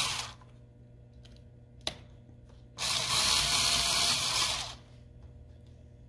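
Cordless electric screwdriver running for about two seconds, driving a screw into a 2.5-inch hard drive's metal mounting bracket; a short noise at the start and a click about two seconds in come before it.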